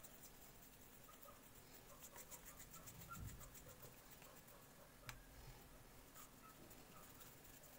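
Near silence with faint, soft patting and rubbing of floured hands rolling yeast dough into balls on a silicone mat, and one small click about five seconds in.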